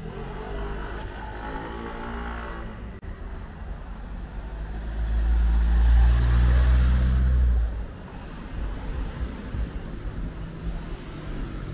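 Motor vehicles passing on a street: one goes by early on with its engine note falling, then a louder vehicle engine rumbles past close by from about five seconds in and fades sharply near eight seconds.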